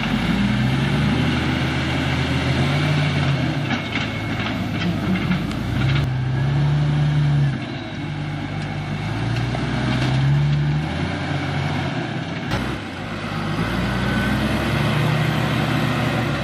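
Heavy machine's diesel engine running under load, its revs rising and falling several times, with a few sharp knocks.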